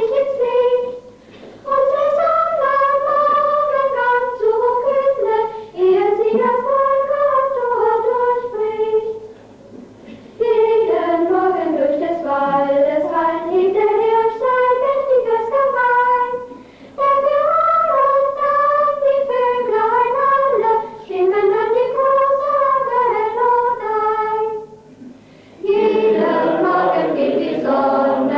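A choir of high voices singing a melody in unison, unaccompanied, in phrases of a few seconds with short breaks between them. Near the end a louder, fuller passage in several voices begins.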